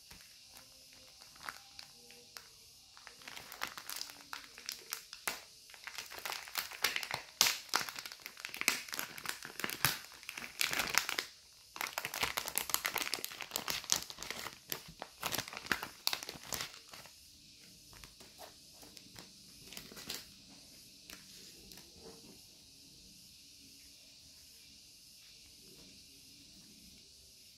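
Clear plastic zip-lock sticker bags crinkling as hands dig into them and pull out paper stickers, in a dense irregular crackle. After about two thirds of the stretch it dies down to soft, occasional rustles of paper stickers being sorted.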